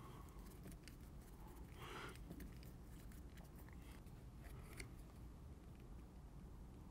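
Near silence with faint handling sounds of a folding hex key turning screws into a polymer rifle chassis: a soft scrape about two seconds in and a few small clicks near the middle.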